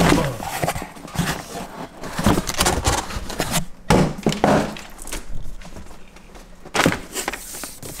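A cardboard box being handled and tipped so an RC truck kit slides out of it: irregular rustling and scraping broken by several knocks and thumps.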